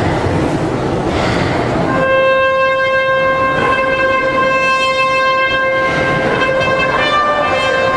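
A trumpet begins playing about two seconds in, after a wash of background noise. It holds one long note, then moves to a new note near the end.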